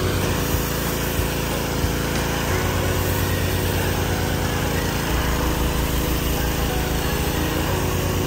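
A small engine running steadily, its low hum shifting slightly in pitch now and then.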